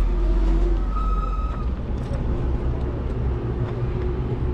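Road traffic passing: a deep, steady motor vehicle engine rumble, with a brief high whine about a second in.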